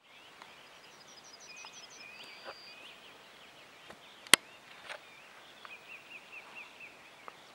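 Songbirds singing over a quiet meadow, with series of short repeated notes and trills. One sharp, loud click about four seconds in, and a fainter one half a second later.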